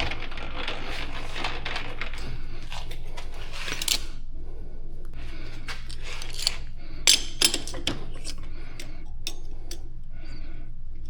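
Light metallic clinks and taps of metal tools and parts being handled, with a few sharper clinks about seven seconds in, over a steady low hum.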